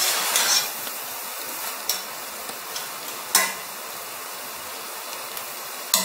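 A metal spatula stirring and folding sweet rice in a stainless steel pot. There is a scraping rustle at the start, then a few sharp knocks of the utensil against the pot over a steady sizzling hiss from the pot on the heat.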